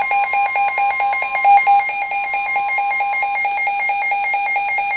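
Weather alert radio sounding its alarm for a severe thunderstorm warning: a loud, rapidly pulsing beep. Under it the steady NOAA Weather Radio warning tone holds until about three seconds in, then stops.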